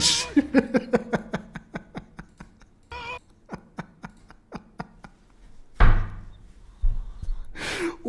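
A man's stifled, breathy laughter: a quick run of short pulses, about five a second, fading out, with a brief squeak of voice partway through and two heavier breaths near the end.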